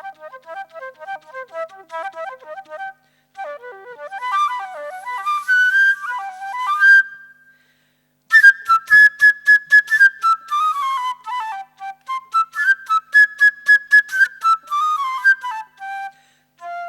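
Solo flute playing the part of a bird: fast, detached repeated notes and quick flurries, with a held high note about six seconds in. After a short break it plays rapid tongued notes and runs that fall in pitch, twice over, ending on a low note.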